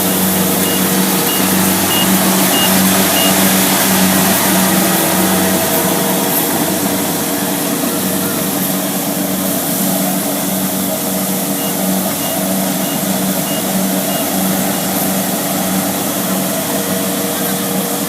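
Kubota DC70 Plus combine harvester's diesel engine running steadily under working load, with a wide mechanical whir from the machinery. A high warning beeper sounds about twice a second during the first three seconds, and again from about 11 to 15 seconds in.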